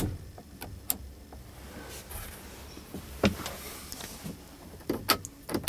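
Plastic clicks from a Mercedes-Benz Sprinter's cab dome-light switch being pressed: a sharp click at the start, then scattered lighter clicks and knocks, several close together near the end.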